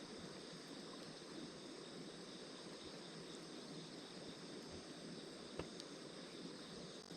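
Small fire burning in a CAPTAIN STAG B6 Smart Grill: a steady quiet hiss with a few faint crackles and one sharper pop about five and a half seconds in.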